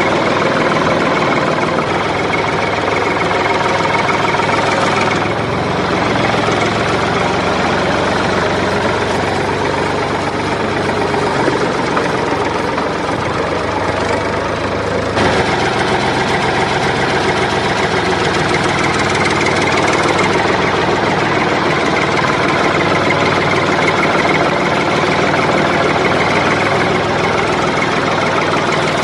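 Motor of a homemade mini tractor running steadily as the tractor drives along, with a rattling, knocking mechanical tone. The sound shifts slightly about 5 and 15 seconds in.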